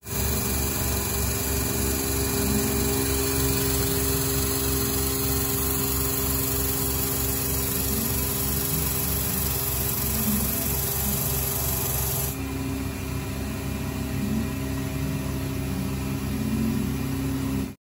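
Retrofitted Emco F1 CNC milling machine cutting a metal part: the spindle and end mill run steadily while the stepper-driven axes move, with an even, repeating pulse and a hiss over it. The hiss gets quieter about twelve seconds in.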